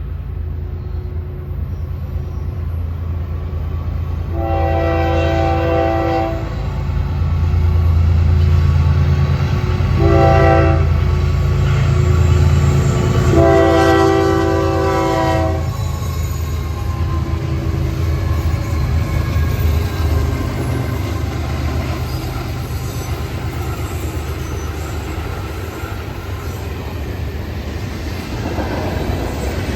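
Diesel freight locomotive sounding its horn for a grade crossing: a long blast, a short one, then a long one, over the heavy rumble of the locomotive and train rolling past.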